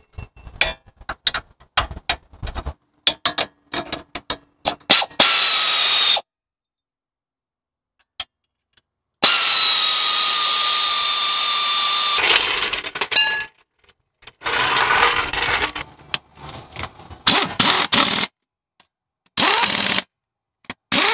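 Pneumatic air tools tightening Jeep suspension and wheel fasteners: first a string of clicks from hand tools, then an air ratchet running in steady bursts on the front suspension bolts, the longest lasting about three seconds, and near the end short bursts of an air impact wrench on the wheel lug nuts.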